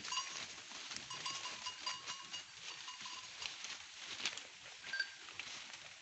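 Herd of local goats browsing in forest undergrowth: scattered rustles and clicks, with short ringing tones now and then.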